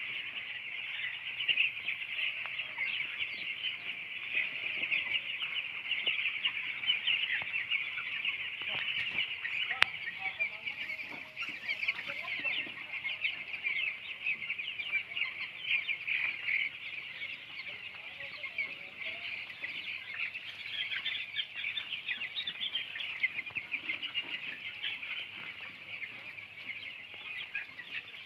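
A flock of young broiler chicks peeping continuously, many high calls overlapping into a steady chorus. A single sharp click sounds about ten seconds in.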